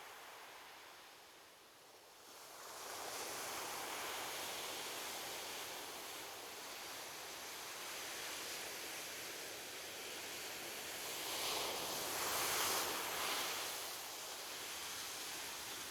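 Ocean waves breaking and washing on a beach, a steady rush of surf that swells a few seconds in and peaks as a larger wave breaks about two-thirds of the way through.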